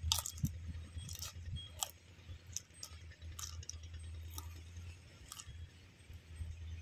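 Crunching and cracking cooked crab shell while chewing with an open mouth, sharp crackles coming about once a second over a low steady hum.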